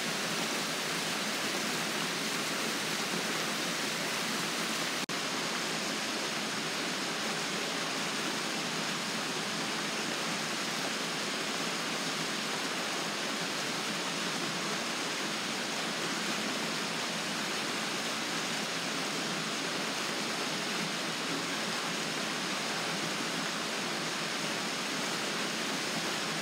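Rain-swollen water rushing steadily down a concrete spillway chute, a full, even hiss of churning flow. A faint click about five seconds in.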